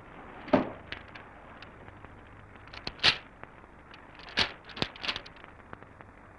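A sheet of paper being handled and unfolded, with scattered short crackles and taps, loudest about three seconds in and again about four and a half seconds in. Underneath is the steady hiss of an old film soundtrack.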